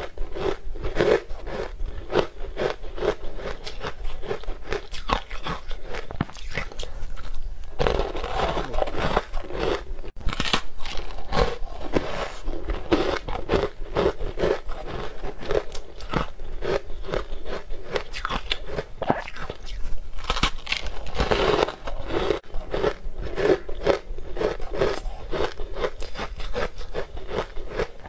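Close-miked biting and crunching of green-coloured frozen ice blocks, with dense crackling and cracking as the frozen chunks are chewed, bite after bite.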